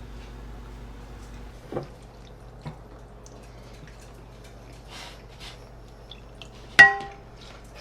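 Tableware clinking: a couple of light knocks, then one sharp clink that rings briefly near the end, over a faint steady hum.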